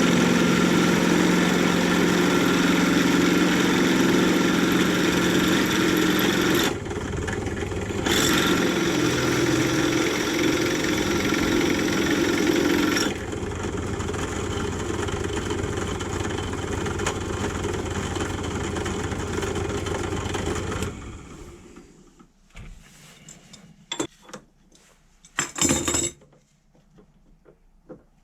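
A workshop power tool's motor running steadily, its level stepping down twice, then switching off. This is followed by a few light clinks and knocks.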